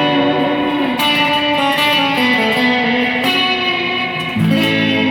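Electric guitar played through a Surfyman Brownface amp emulator pedal: ringing chords and single notes, with a fresh strike about a second in, another past three seconds and a fuller chord near the end, and some notes bent in pitch.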